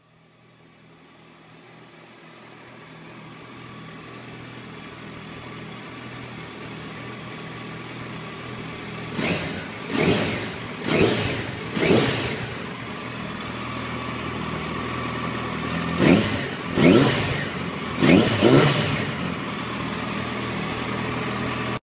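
Yamaha FZ1's inline-four engine idling steadily, then blipped four times in quick succession about halfway through and four more times a few seconds later, each rev rising and dropping back quickly; the sound cuts off suddenly near the end.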